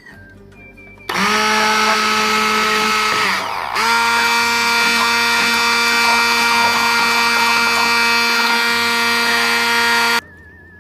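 Electric blender motor running, puréeing crushed garlic with lemon juice: a steady high whine that starts about a second in, slows and picks up again once, then runs on and cuts off near the end.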